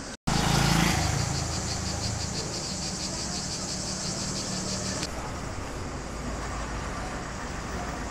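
Town street sound: a car engine running in a low steady hum, with cicadas buzzing in a high, pulsing drone over it. The buzz is loudest just after a short break near the start and eases about five seconds in.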